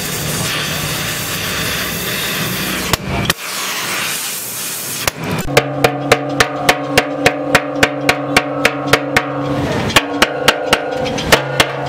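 Gas welding torch hissing against the steel fuel tank, stopping about three seconds in. Later a hammer taps rapidly and evenly on the welded seam of the tank, about four blows a second, with a brief pause near the end, over a steady hum.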